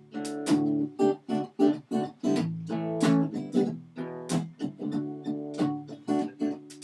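Acoustic guitar strummed in a steady rhythm, chords ringing between strokes, in the instrumental gap between sung refrains.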